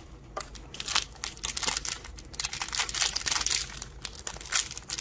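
Small blind-bag toy wrapper crinkling as fingers work it open, a quick, irregular run of crackling rustles that is busiest in the middle.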